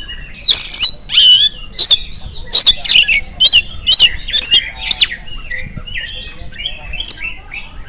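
Oriental magpie-robin (kacer) singing in full voice: a quick run of loud, sharp whistled notes and slurred rising-and-falling phrases, turning softer and more warbling after about five seconds.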